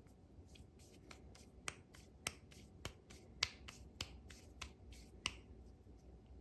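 A run of light, sharp clicks and taps, about a dozen at irregular spacing, the loudest around the middle, over a low steady hum.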